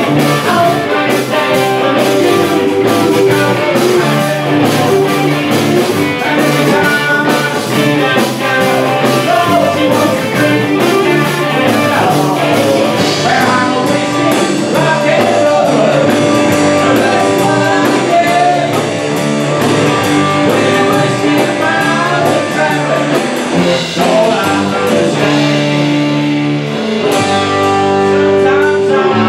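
Live rock band playing: electric guitar over drums and bass, with a singer's voice at times. The cymbals drop out about halfway through and the band carries on with lighter backing.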